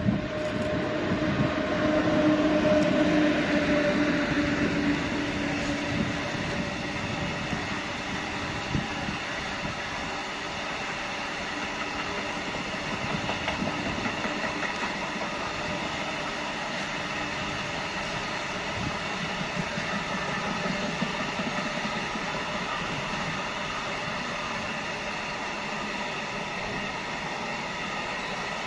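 ET22 electric freight locomotive passing at speed, with two steady tones that drop slightly in pitch over the first few seconds, then the long, even rumble and wheel clatter of its container wagons rolling by.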